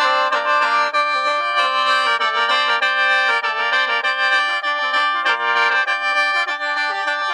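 Khaen, the Isan bamboo free-reed mouth organ, playing a lively melody over sustained chord tones that keep sounding beneath it.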